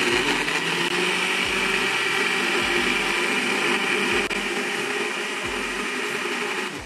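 Electric blender running at full speed, puréeing strawberries into a smooth paste with a steady whirr. It gets a little quieter after about four seconds and stops near the end.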